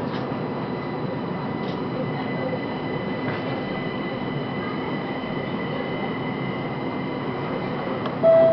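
Linimo maglev train running, heard from inside the car: a steady hum of running noise with a thin, steady high whine over it. Near the end the whine stops and a louder chime tone begins.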